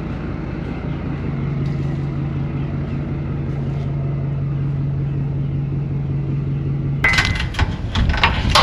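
An engine running at a steady speed. About seven seconds in, loud clanking and knocking starts over it.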